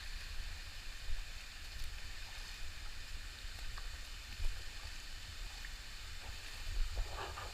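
Water rushing and splashing down a hot-spring stream and its small cascades, a steady hiss with a low rumble underneath.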